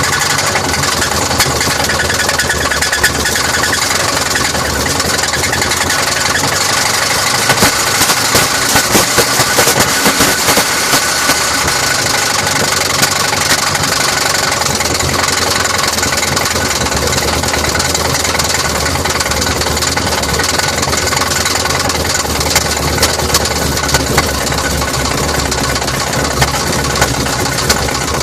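Chevy 454 big-block V8 idling steadily with a fast ticking running through it, sharper for a few seconds about eight seconds in. The engine has just been installed, and the owner cannot place the odd noise.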